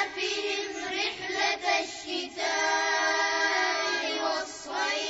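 Children's voices chanting a line of Quranic recitation together in a slow, melodic style, repeating after the reciter, with short breaks between phrases and a pause near the end.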